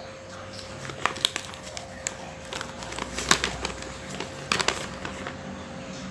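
Folded paper instruction leaflet being unfolded and handled: paper rustling with several sharp crinkles, clustered about a second in, past three seconds and around four and a half seconds, over a faint steady hum.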